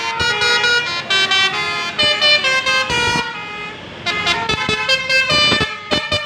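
Telolet basuri multi-tone bus horn playing a quick melody of stepped notes, with a short break a little after three seconds in before the notes start again.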